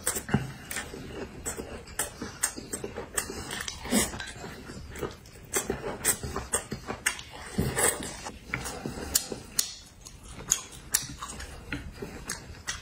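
Close-miked eating: chewing and lip-smacking, an irregular string of sharp clicks several times a second.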